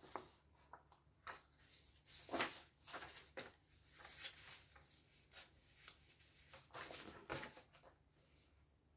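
Sheets of paper rustling and sliding as they are handled and laid onto a spiral sketchbook, in short soft irregular bursts.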